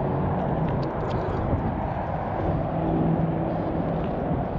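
Steady low rumble of distant motor noise, with a faint hum running through it and a few faint high ticks about a second in.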